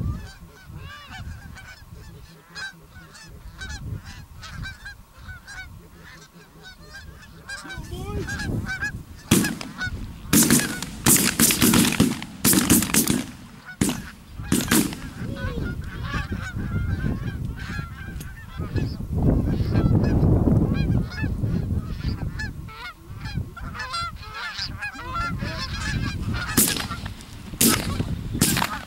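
A flock of geese honking and calling continuously as it approaches, with loud bursts of calling about a third of the way in and again near the end.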